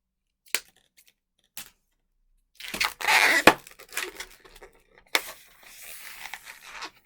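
Latex twisting balloon being handled and twisted: rubber rubbing against itself in a loud stretch, with a sharp crack about three and a half seconds in and another about five seconds in, typical of popping the small end bubble.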